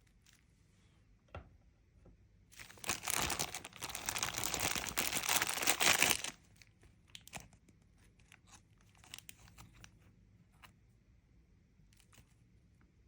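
Toy packaging being torn open: about four seconds of continuous tearing and crinkling starting a couple of seconds in, followed by a few light clicks and rustles of handling.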